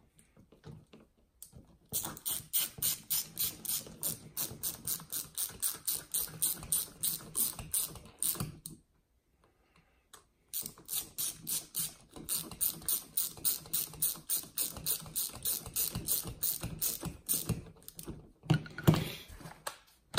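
Ratcheting hand driver clicking rapidly and evenly, about four or five clicks a second, in two long runs with a short pause between, as screws are driven into the RC truck's front differential case.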